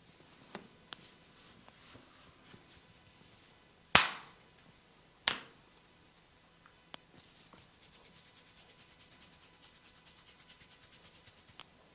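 Barber's hands working on a head during a massage: two sharp hand slaps a little over a second apart, then a fast, even patter of light strokes, about nine a second, through the second half.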